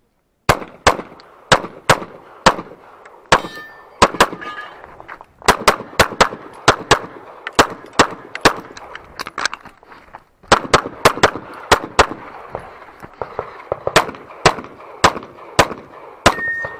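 Rapid semi-automatic pistol fire from a red-dot-sighted handgun during a timed practical-shooting stage: strings of quick shots, about two to three a second, broken by short pauses about five and ten seconds in. A few hits leave a brief metallic ring, as from steel targets.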